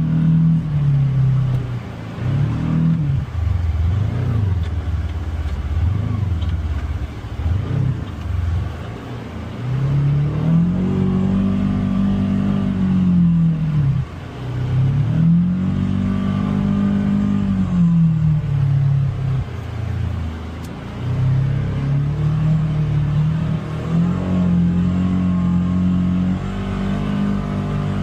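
Polaris Xpedition UTV engine running under throttle on a trail, its revs rising and falling: low and wavering in the first several seconds, then two long swells up and back down in the middle, and steadier near the end.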